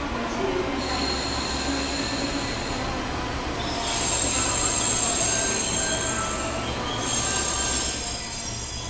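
A train's steel wheels squealing on the rails: several high-pitched squealing tones together, growing louder about three and a half seconds in and again about seven seconds in.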